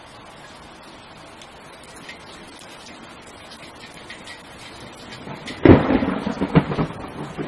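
Steady rain hiss, then a sudden thunderclap about five and a half seconds in, rumbling on with uneven rolls.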